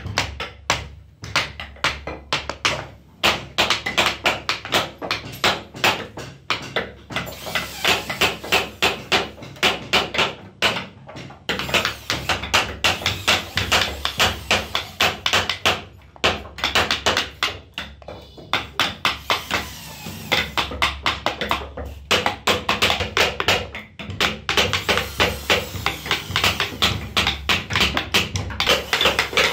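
Wooden mallet tapping a small carving chisel into a wooden panel: quick, sharp taps several a second, in runs broken by brief pauses.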